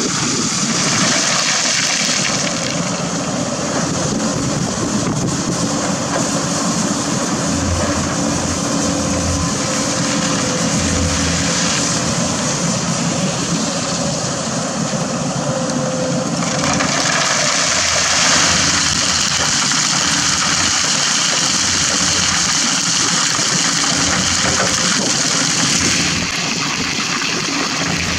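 Diesel engines of a hydraulic excavator and a dump truck running steadily, while buckets of river stones and sand pour into the truck bed. The falling rock gives a continuous noisy rush over the engine sound.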